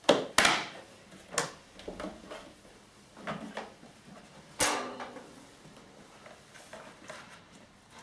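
Hard plastic clicks and knocks of the Numatic George vacuum's motor head being unlatched and lifted off its drum and the parts inside being handled: two sharp clicks at the start, another about a second and a half in, a louder knock about four and a half seconds in, then softer handling.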